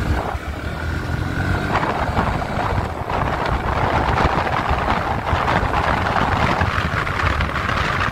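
Motorcycle engine running on the move, with wind and road noise on the microphone that grows louder about three seconds in.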